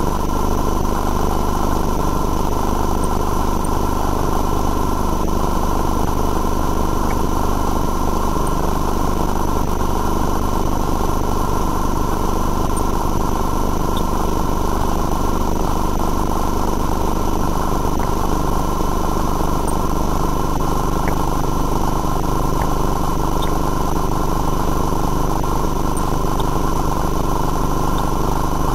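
An engine running steadily at idle, a constant low drone with a steady whine on top; its low hum shifts slightly about twenty seconds in.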